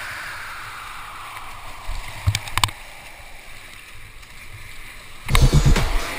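Rushing whitewater river noise with two short knocks a little over two seconds in; about five seconds in, electronic dance music with a heavy, regular beat starts up loudly.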